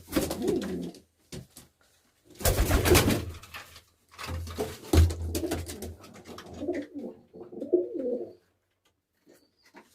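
Domestic pigeons, Baku pigeons, cooing in low rolling phrases. Two louder noisy bursts come about two and a half and five seconds in, and the cooing stops a little after eight seconds.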